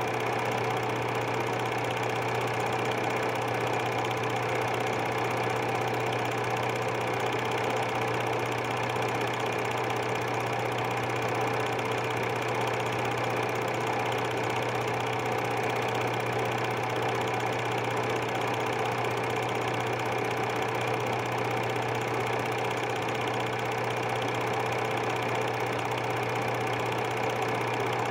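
Super 8 film projector running steadily, an even mechanical hum from its motor and film-advance mechanism.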